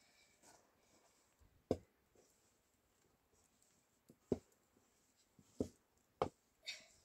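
Wooden stirring stick knocking against an iron wok while a thick flour mixture is stirred: four sharp knocks at uneven intervals, with a few fainter taps between them.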